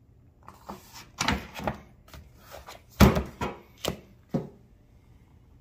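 Handling noise from a paperback manual being closed and a handheld plastic code reader being moved on it: a run of rustles and short knocks, the loudest knock about three seconds in.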